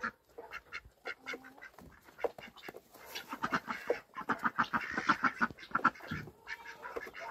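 Ducks quacking: a rapid run of short quacks, busiest from about three to six seconds in.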